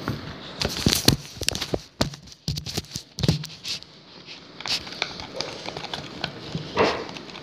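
Homemade slime being mixed and worked, giving a quick, irregular run of sticky clicks, snaps and squelches.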